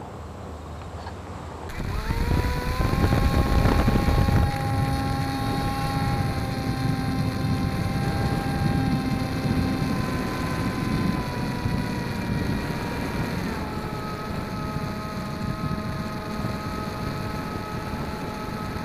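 RC model plane's motor and propeller starting up about two seconds in with a rising whine, loudest for the next few seconds, then running at a steady pitch. The pitch steps up about three-quarters of the way through as the throttle changes.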